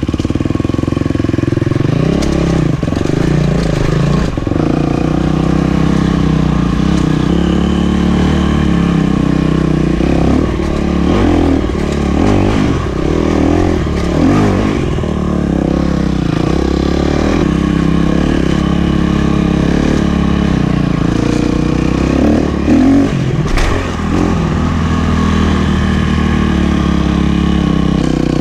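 KTM 250 SX-F dirt bike's four-stroke single-cylinder engine running as it is ridden, its pitch repeatedly rising and falling with the throttle, with a few sharp knocks.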